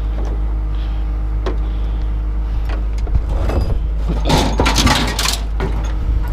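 A vehicle engine idling as a steady low hum, with a few scattered knocks and a burst of clattering, rattling noise about four to five seconds in.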